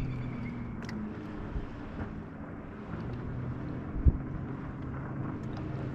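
A bass boat's motor running steadily with a low hum, and one sharp thump about four seconds in.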